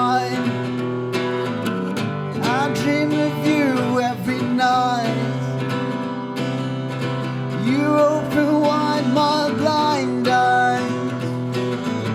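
Acoustic guitar strummed steadily under a man's singing voice, with sliding melodic runs in the vocal line.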